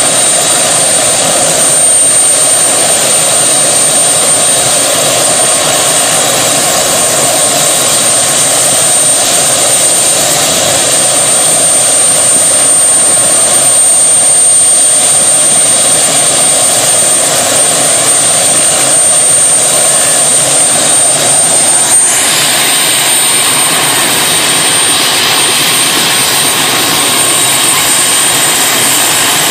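Helicopter in flight: loud, steady engine and rotor noise with a thin, steady high whine on top. The noise shifts slightly in character about 22 seconds in.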